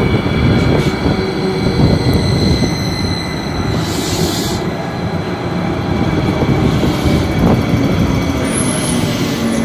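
A Hudson-Bergen Light Rail low-floor electric light-rail car running in alongside the platform and slowing to a stop, a steady rumble of wheels and running gear under a steady high whine. A short hiss sounds about four seconds in.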